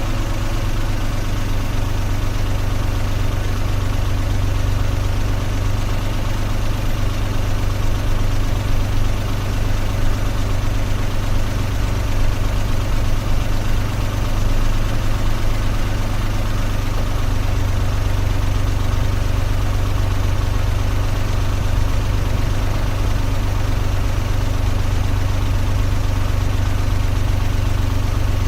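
Car engine idling steadily, a continuous low hum.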